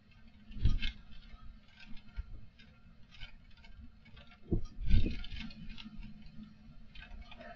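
Strong wind on a CCTV camera's microphone: gusts buffeting the mic in low rumbles, one about a second in and a stronger one around five seconds in, with scattered light ticking and rattling between them.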